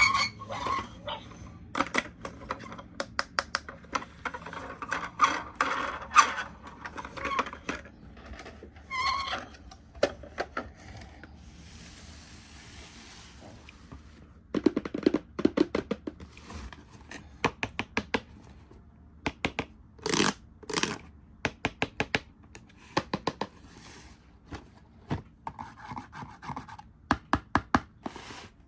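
Hands handling plastic toys and packaging: a long series of sharp clicks, taps and knocks, with a couple of seconds of rustling noise about twelve seconds in.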